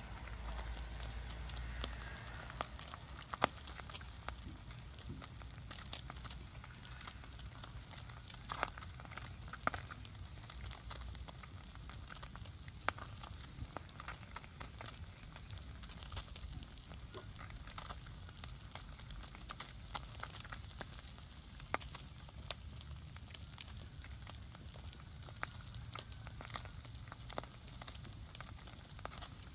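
Wood fire crackling, with scattered sharp pops over a steady low background.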